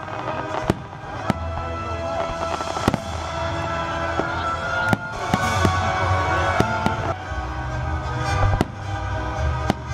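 Fireworks display: aerial shells bursting in a series of sharp bangs at irregular intervals, about ten in all, with some crackle. Music with a steady bass plays underneath.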